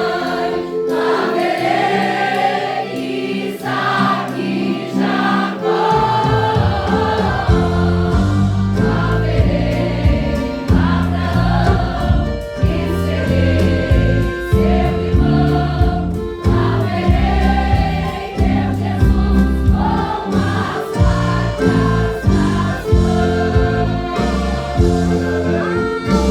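Choir singing a gospel worship song with band accompaniment; bass and drums come in about six seconds in.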